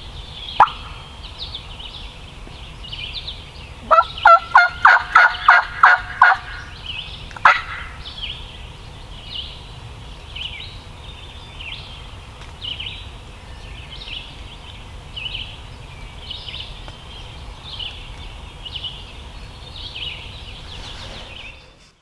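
A series of about nine loud, evenly spaced turkey yelps, roughly four notes a second, lasting about two seconds, with a single sharp note before and after. Small songbirds chirp steadily throughout.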